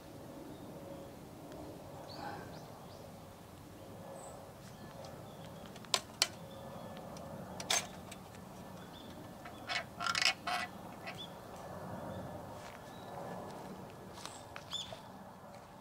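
A few sharp metal clicks and a brief clatter from a hurricane oil lantern being handled as it is lit: a pair of clicks midway, another shortly after, then a short run of clatter. Behind them there is a low steady campfire background and a few short bird chirps near the start and near the end.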